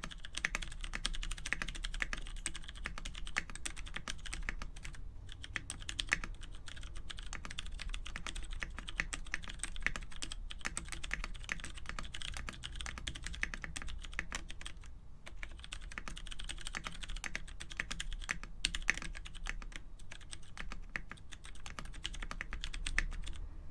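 Steady fast typing on a mechanical keyboard with lubed, film-lined Cherry MX Clear switches, the spacebar on a lubed vintage MX Black switch with clip-in stabilisers. It pauses briefly about five, fifteen and nineteen seconds in.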